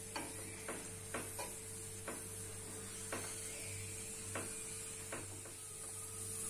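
A metal spoon clicking and scraping on a paratha on a hot tawa as oil is spread over it, about a tap every half second to a second, over a faint steady sizzle.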